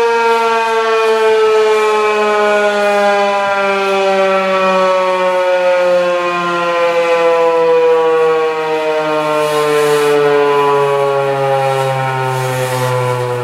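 Federal Signal 2001-130AC AC-powered electromechanical outdoor warning siren winding down, its loud wail falling slowly and steadily in pitch as the rotor coasts to a stop.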